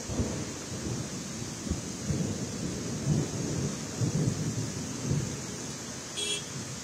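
Heavy rain pouring down in a steady hiss, with irregular low rumbles swelling about once a second. A brief high-pitched tone sounds near the end.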